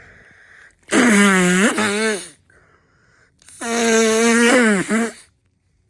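A person sneezing loudly twice, about two and a half seconds apart. Each sneeze is voiced and drawn out for more than a second.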